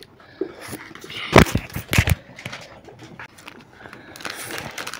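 Plastic ice-cream bar wrapper crinkling and rustling as it is torn open, loudest in a few sharp rustles about a second and a half in.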